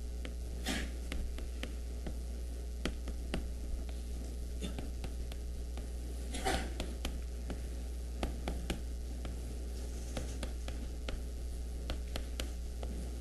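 Writing on a classroom board: irregular short taps and strokes as small plus-minus dipole symbols are drawn, with a couple of longer scrapes, over a steady low mains hum.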